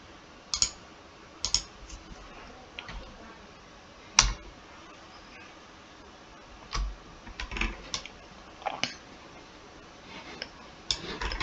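Computer mouse and keyboard clicks: scattered single clicks at irregular intervals, the sharpest about four seconds in, with a quick run of clicks near the end.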